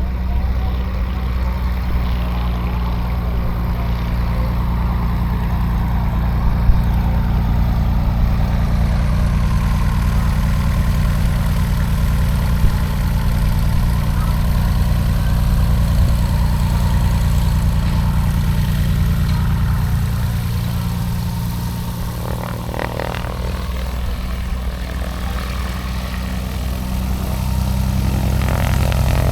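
An engine idling steadily with a deep, even drone. It eases off slightly about twenty seconds in and picks up again near the end.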